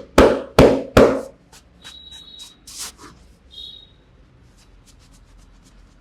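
A barber's hands slapping the head during an oiled head massage: three loud, sharp slaps in quick succession, about 0.4 s apart, in the first second, followed by faint light taps and rubbing.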